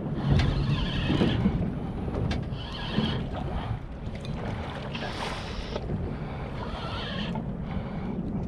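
Sounds of a small boat on open water: a steady low rumble and wind on the microphone, with water splashing against the hull every second or two.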